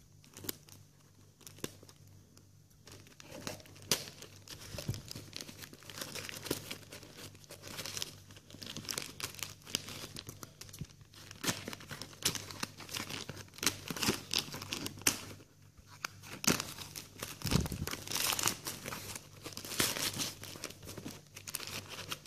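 Black plastic courier mailer bag crinkling and tearing as it is cut open with scissors and pulled off a cardboard box, with many short irregular snips and rustles.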